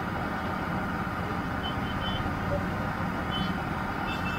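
Steady street-market din with a low hum, and a few brief high beeps or chirps about two seconds in and again near the end.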